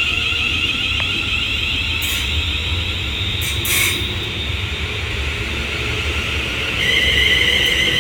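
Class 350 Desiro electric multiple unit pulling away, its traction inverters giving a steady high whine that steps to a new pitch about seven seconds in, over a low rumble. A brief burst of noise about four seconds in.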